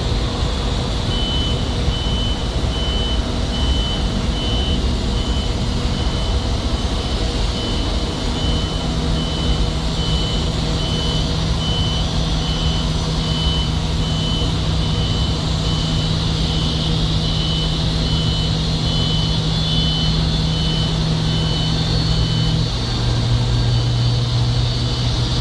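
A vehicle's reversing alarm sounding evenly spaced high beeps over a steady engine and traffic noise, stopping about 22 seconds in. A low steady engine hum comes in partway through and drops to a lower pitch near the end.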